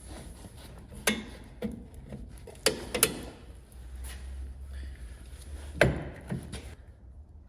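Hand tools and metal brake parts clanking and knocking during drum-brake work. There are about six sharp knocks, the loudest near the start and one near the end, over a low steady hum.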